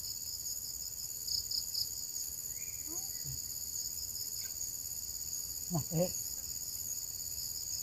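Chorus of insects, a steady high-pitched trilling that pulses. Faint distant voices come in briefly twice, about three and six seconds in.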